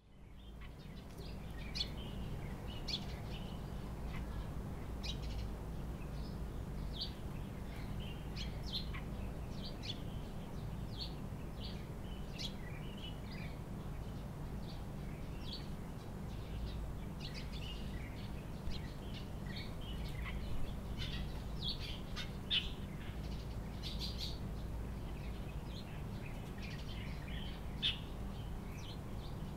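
Small birds chirping outdoors, many short calls in quick irregular succession, over a steady low background rumble. The sound fades in at the start.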